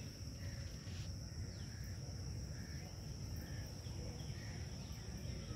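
Outdoor background noise: a low rumble with a steady high-pitched insect-like drone and faint short chirps repeating every half second or so.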